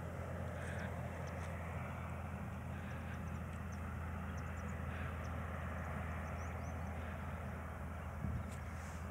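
A steady, low engine hum runs throughout, with faint short high chirps above it.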